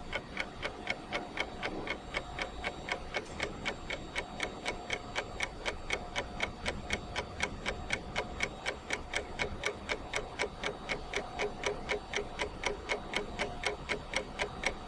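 Steady, even ticking, about four to five ticks a second, with a faint steady tone underneath.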